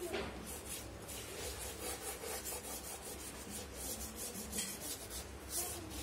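Charcoal rubbing and scratching on cartridge paper in a string of short, irregular strokes, about two a second.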